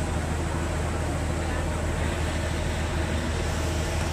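A steady low engine hum that keeps an even level, with indistinct voices in the background.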